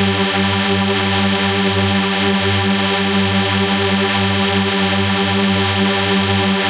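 Loud, steady electronic synthesizer-like drone: many held tones stacked together over a throbbing low hum and hiss, without change.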